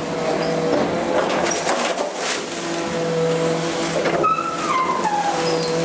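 Hydraulic packer of a MacDonald Johnston side-loader garbage truck working, heard from inside the body: a steady whine of several tones, with crackling as branches and green waste are pushed and crushed, and a squealing tone that slides down in pitch about four seconds in.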